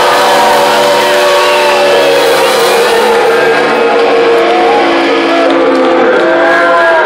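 Live rock band playing loudly, electric guitars ringing on sustained, wavering notes as the song draws to its close. The highest hiss thins out near the end.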